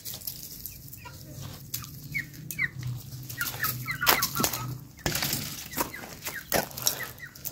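Chickens clucking and calling in short repeated notes, with frequent sharp clicks and taps, the loudest about four seconds in, over a low steady hum.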